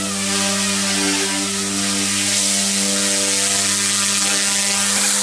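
F05 six-channel single-rotor RC helicopter running at a steady speed: an even motor-and-rotor hum holding one pitch.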